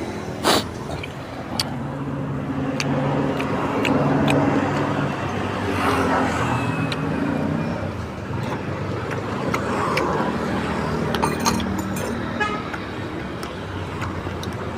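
Road traffic: motor vehicles running past on the street, with a few sharp clicks, the strongest about half a second in.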